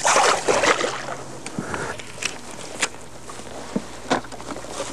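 A bass tossed back into the lake splashes into the water, followed by a few scattered sharp knocks and clicks.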